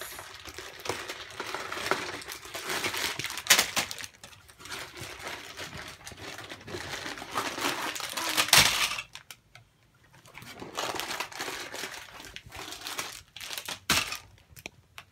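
Plastic bags and paper crinkling and rustling as hands rummage inside a cardboard loot llama piñata. There are sharp, louder rustles about three and a half and eight and a half seconds in, then a short pause before more crinkling.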